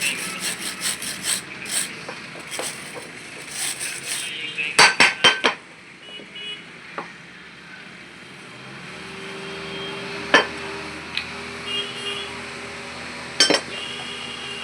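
Metal tools and parts clinking and tapping in quick succession, then four sharp metallic strikes close together about five seconds in. After that comes a faint steady hum, broken by a few single clicks.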